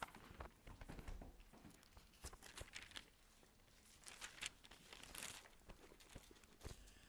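Faint rustling and crinkling of thin Bible pages being turned by hand, several short page flips.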